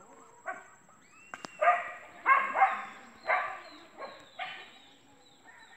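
A dog barking, about seven barks at irregular intervals, the loudest a little before the middle.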